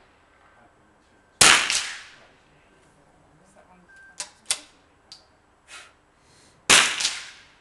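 Two .22 rifle shots about five seconds apart, each echoing briefly around the range. Between them come two quick metallic clicks of the rifle's bolt being worked.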